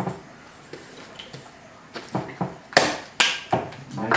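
Plastic clicks and knocks from a vacuum cleaner's head and hose being handled and fiddled with, about seven irregular sharp knocks starting about halfway through after a quiet start.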